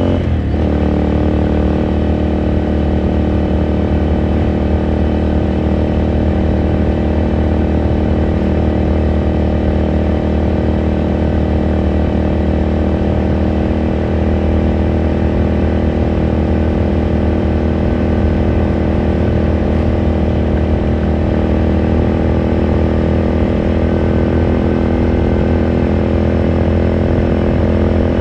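2018 Ducati Scrambler Sixty2's air-cooled L-twin engine and exhaust running under way at a fairly steady engine speed, with a brief dip in revs just after the start.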